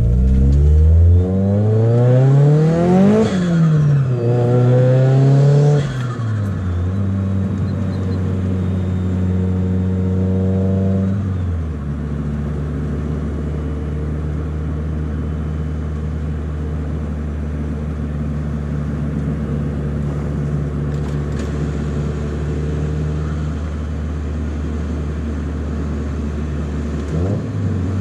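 Turbocharged SR20DET four-cylinder engine of a Nissan 200SX S14a revving. The revs climb quickly and fall back about three seconds in, rise again and drop at about six seconds, then hold a steady note. At about twelve seconds the note drops lower and stays steady, with a brief rise and fall of revs near the end.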